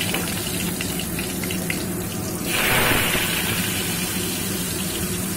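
Potato pieces frying in hot mustard oil, a steady sizzle with light crackling that swells about halfway through.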